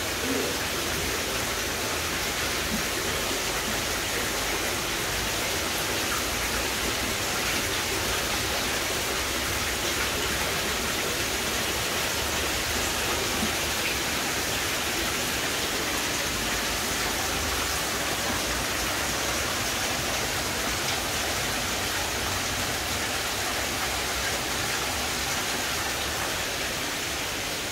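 Steady splashing of water pouring from an inflow pipe onto the surface of a koi tank.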